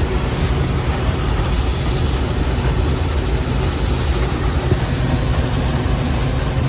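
Combine harvester running while harvesting corn: a steady, loud engine and machinery drone.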